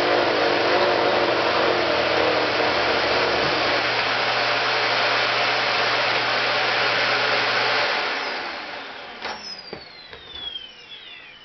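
A motor-driven machine running steadily with a hum, then switched off about eight seconds in; its whine falls in pitch as it spins down.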